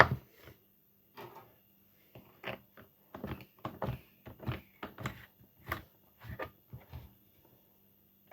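Irregular clicks, knocks and rattles of a desk fan's parts being handled and worked on, about a dozen in quick succession, as in sped-up repair footage.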